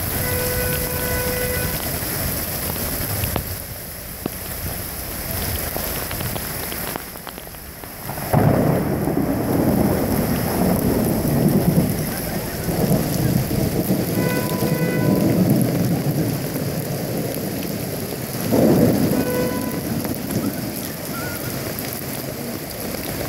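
Torrential rain hissing steadily onto a flooded street, with loud low rumbles of thunder, the first coming in suddenly about eight seconds in and others following.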